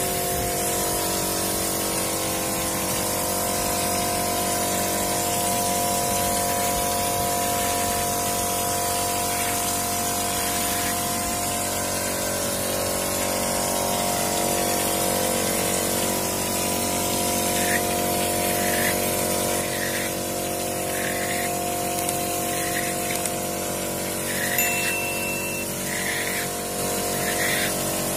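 Hopper spray gun blowing textured travertine-effect plaster onto a wall: a steady hiss of compressed air over a constant machine hum. In the last third comes a series of short spurts, about one a second.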